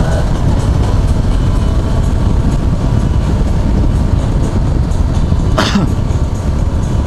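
Steady wind rush buffeting the camera mic while riding a Yamaha FZ6R inline-four sport bike at about 45 mph, with the engine running underneath and drowning out the music from a bike-mounted Bluetooth speaker. A brief sharper rush comes a little over halfway through.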